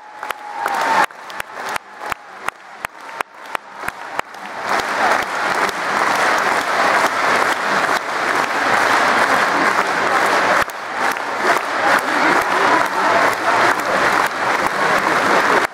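Arena audience applauding: clapping together in time, about two claps a second, for the first few seconds, then breaking into dense, continuous applause.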